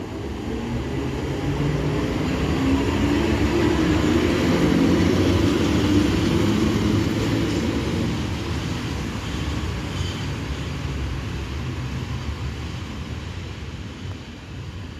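EP07 electric locomotive running light past along the platform track. Its running sound grows to a peak about five seconds in, then fades as it moves away.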